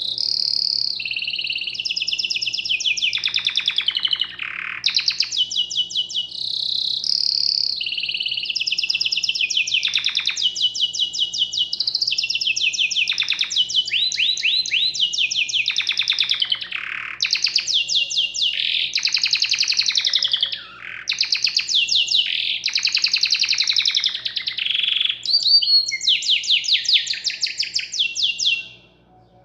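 A songbird singing one long, unbroken song of fast trills alternating with clear whistled notes, stopping abruptly near the end.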